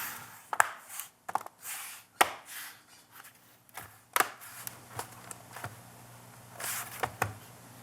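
Bottom cover of a Dell 3110 2-in-1 Chromebook being pressed onto the chassis: a series of irregular sharp clicks as its edge clips snap into place, with rubbing and handling noise in between.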